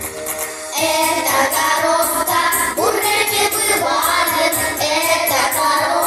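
Pop-style backing track of a children's song starting up, its full steady beat coming in about a second in, with children's voices singing over it.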